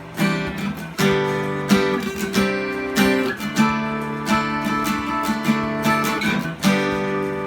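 D&D Django Jr. mahogany acoustic guitar being strummed: chords ring out, with a fresh strum every half second to a second.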